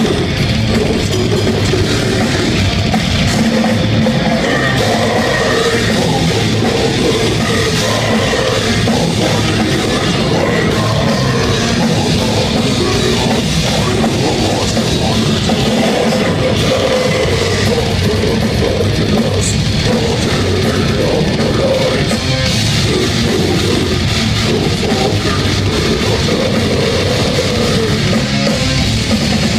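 Death metal band playing live at full volume: heavily distorted guitars and bass over a pounding drum kit, a dense, unbroken wall of sound.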